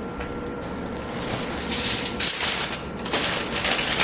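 Plastic bag crinkling in quick, dense crackles, coming in two or three bouts from about halfway through, over a steady faint hum.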